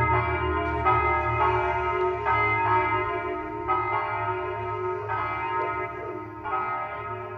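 Church bells ringing, each stroke about a second apart or less and overlapping the long ring of the one before, growing gradually quieter.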